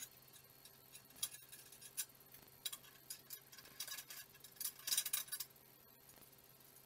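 Light metallic clicks and clinks of a small wheel and its hardware being fitted by hand onto the steel front spindle of a go-kart frame, with a quick cluster of louder clicks about five seconds in.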